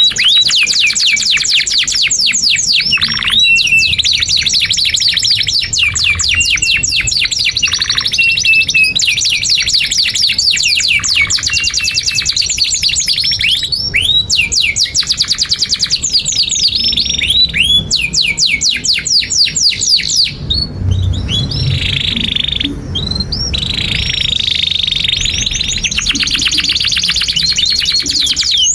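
Domestic canary singing a long, unbroken song of fast trills: runs of rapid, repeated downward-sweeping whistles mixed with sharp chirps and short held notes.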